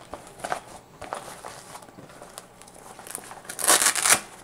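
Fabric cable carrying pouch rustling as it is handled and folded, with a louder burst of rustling about three and a half seconds in.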